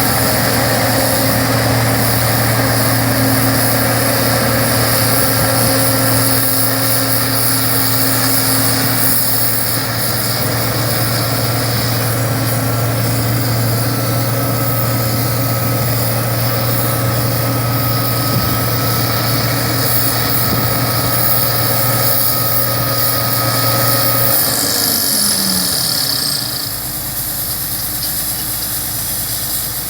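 Combine harvester running steadily, with a constant engine hum and a high whine. About 25 seconds in, the whine falls in pitch and the machine runs on more quietly, as if it has been throttled down or a drive disengaged.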